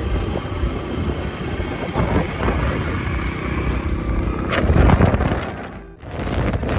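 Wind rushing over the microphone of a phone filmed from a motorcycle moving fast, with the bike's engine running underneath. The noise swells about five seconds in, then drops sharply for a moment before picking up again.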